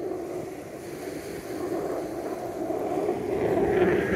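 F-35 fighter jet's engine noise overhead, a steady rumble growing louder as the jet approaches.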